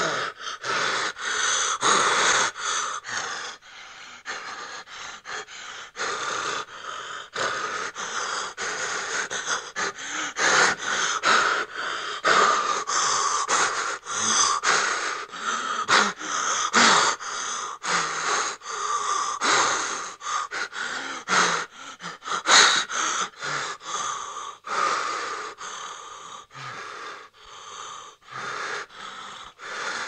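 A person breathing in fright: rapid, uneven gasping breaths in and out, one after another.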